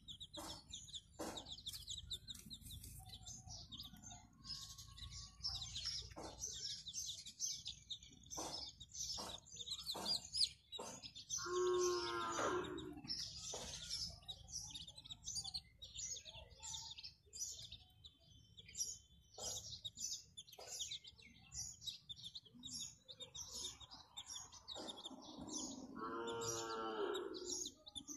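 Chicks peeping in a constant run of short, high chirps. Twice, once about 12 seconds in and again near the end, a longer and lower call from a larger farm animal sounds over them.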